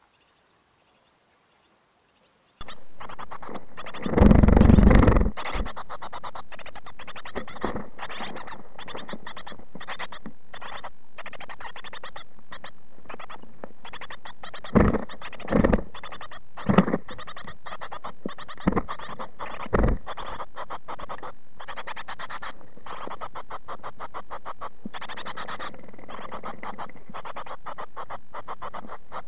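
Great tit nestlings in a nest box begging with a dense, high, raspy chatter through the box camera's microphone, starting after a quiet opening. Dull thumps from the chicks moving against the box come through, the loudest a couple of seconds after the chatter starts and a few shorter ones later.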